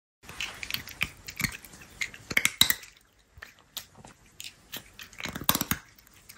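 Crunchy chips being chewed with the mouth close to the microphone: a run of irregular crackling crunches, loudest about two and a half seconds in and again about five and a half seconds in.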